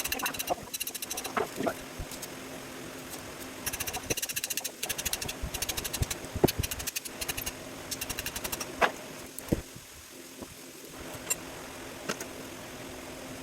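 Hand tools working on a scrap pump motor: several bursts of rapid, evenly spaced mechanical clicking with a few single sharp metal knocks between them, over a steady low hum.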